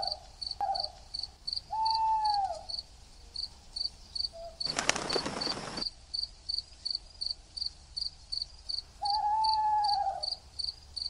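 Night ambience of crickets chirping steadily, about three chirps a second. Two hooting calls come near the start and two near the end, and about five seconds in there is a short rush of noise lasting about a second.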